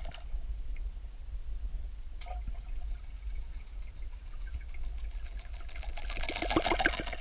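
Underwater recording: a low steady rumble, then from about six seconds in a run of rapid clicks and splashy churning as a topwater lure is pulled across the surface overhead.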